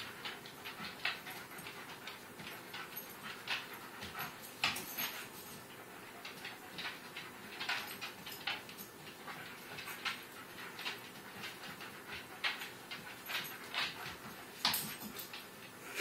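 A dog making a run of short, irregular sounds, a few each second, with no break.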